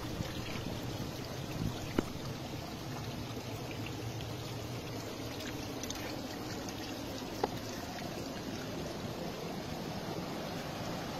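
Spring water running off a leaf spout in a steady trickle and splashing down. There is a sharp click about two seconds in and another about seven and a half seconds in.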